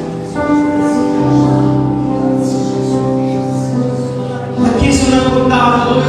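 Slow worship music: sustained keyboard chords with airy cymbal swells. The chord changes and the music grows louder a little before the end.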